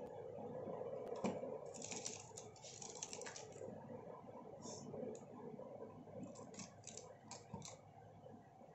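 Faint clicks and taps of a plastic spoon against a glass bowl of chopped fruit and thick plum chutney, with soft squishes, in two clusters: about two seconds in and again near the end. A low steady hum lies underneath.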